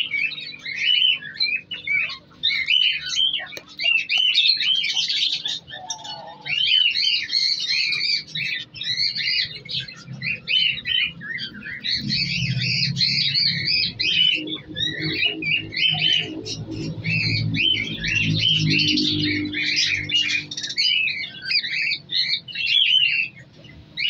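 A flock of budgerigars chattering and warbling: many overlapping short chirps, one after another without a break.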